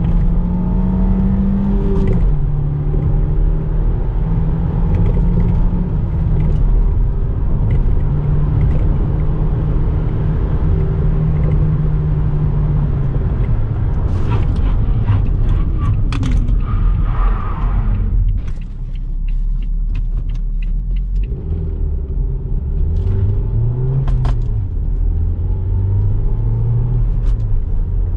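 Renault Espace's 2.0-litre turbocharged four-cylinder petrol engine running on the move over steady road rumble. Its note steps down in pitch about two seconds in, holds steady, falls away in the middle, then rises and falls again near the end, with a few scattered clicks.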